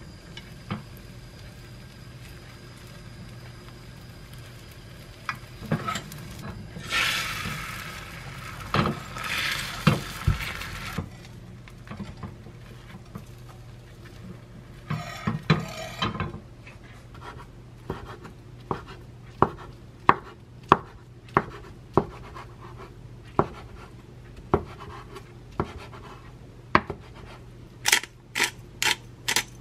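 Egg omelette cooking in a square nonstick pan: sizzling that swells a few seconds in and again midway, with chopsticks scraping as it is rolled. Then a run of short, separate knocks and clinks of kitchen utensils, about one or two a second, the sharpest near the end.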